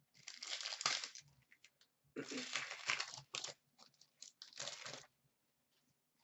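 A trading-card pack wrapper crinkling and tearing open in three bursts of crackle.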